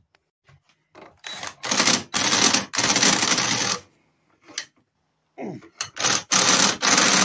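Cordless drill running in two long bursts, with short blips of the trigger before each, as its bit bores into a steel exhaust flange clamped in a vise to clear out a leftover stub of pipe.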